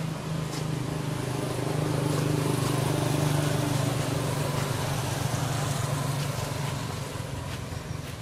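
A motor engine running steadily with a low hum, growing louder about two seconds in and fading toward the end.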